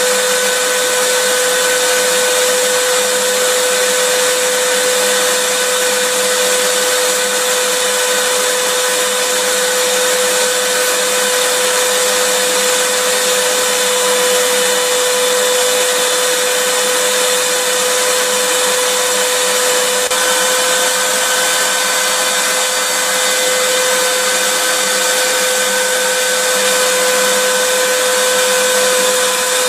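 Vacuum cleaner running steadily: an even rushing hiss with a constant motor whine over it, unchanging throughout.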